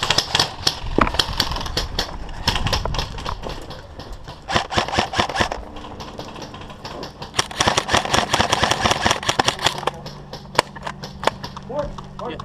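Airsoft guns firing in rapid automatic bursts, dense runs of sharp clicking pops in several stretches with short pauses between. A low steady hum comes in about halfway through.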